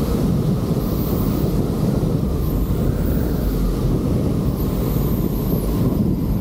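Wind rushing and buffeting over the microphone of a tail-mounted camera on a Piper J3 Cub, with the Cub's 65-horsepower engine running underneath, as the plane flies just above the runway on a crosswind landing. The noise is loud and steady throughout.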